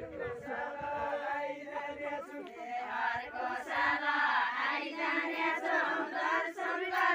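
A group of women singing a Nepali Deuda folk song together, unaccompanied, as they dance in a line. The singing grows fuller and louder about three seconds in.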